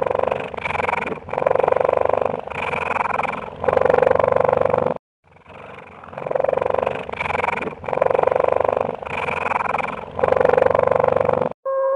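Loud, rough animal calls in a series of bursts; the same sequence of about five seconds plays twice, with a short break between.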